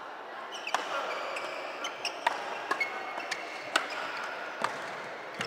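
Badminton rackets hitting a shuttlecock in a doubles rally: sharp hits about a second apart, with hits from neighbouring courts echoing in a large sports hall.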